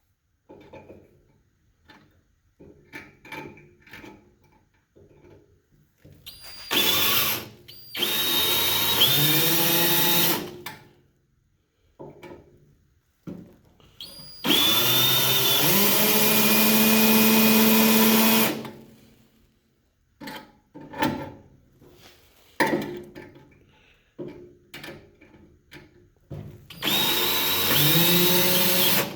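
Electric drill running in four bursts of a few seconds each, spinning up and then holding a steady pitch, the longest near the middle, with metal clicks and knocks between. It is drilling out a rusted, stripped stainless-steel bolt broken off in the grill's aluminum housing.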